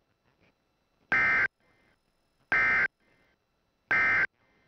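NOAA Weather Radio SAME digital data bursts: three identical short, buzzy warbles about a second and a half apart, each trailed by a faint echo. They are the end-of-message code that closes a severe thunderstorm warning.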